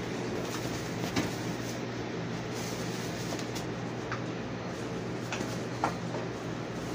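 Steady low hum of room noise with a few faint light clicks and crinkles from a disposable aluminium foil pan as pie crust is pressed into it by a gloved hand.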